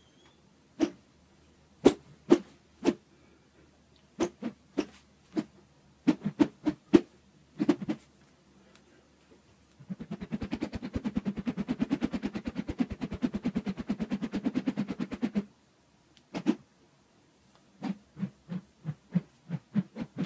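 Plastic rod whipped through the air, each stroke a short sharp swish, given singly and in quick twos and threes. About ten seconds in, a fast continuous run of strokes lasts about five seconds, then single strokes return.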